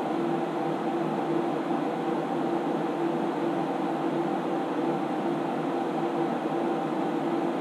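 Steady whirring hum of computer cooling fans, with a few steady tones in it: an SGI Onyx2 running flat out on a four-processor Blender render.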